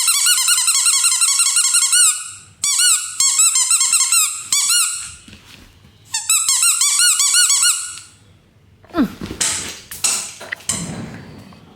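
Electronic sound-making toy ball playing a rapid, repeating warble of high chirps, in three runs that stop and start. Near the end a brief falling sound and some scuffling.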